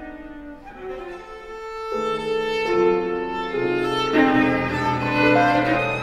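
Viola played with the bow in a slow melodic line of changing held notes, accompanied by piano, growing louder about two seconds in.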